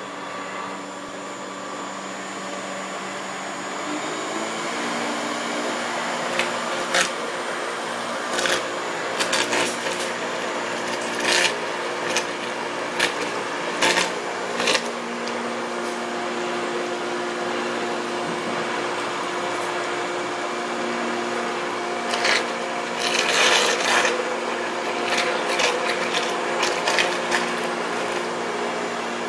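LABINS Vortex high-shear mixer running steadily, its electric motor humming as it disperses CMC in a bucket of liquid. The hum shifts slightly in pitch about four seconds in, and short sharp clicks come now and then.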